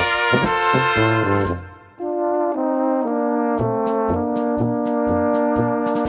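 Background music of brass instruments. One piece fades out about a second and a half in and another begins: held brass chords over a moving bass line, with a light ticking beat.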